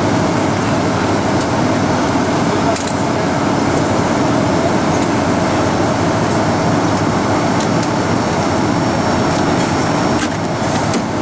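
Boeing 747 passenger cabin noise during the approach to landing: the steady rush of engines and airflow heard from a window seat near the engine.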